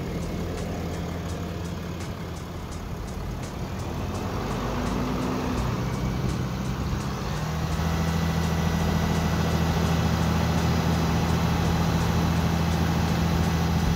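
Ram 2500's 6.7-litre Cummins turbo-diesel inline-six heard up close at the open engine bay, running with the revs raised and held at about 1600 RPM. The engine's hum grows louder around the middle as the revs come up, then holds steady.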